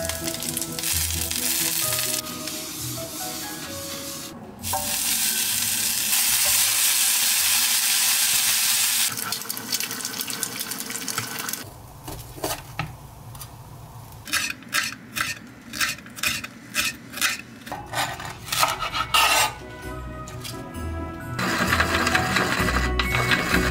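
Tteokgalbi patties sizzling as they fry in a pan, a steady hiss for about the first eleven seconds. Then a knife chops a red bell pepper on a cutting board, about two sharp strokes a second, with background music coming up near the end.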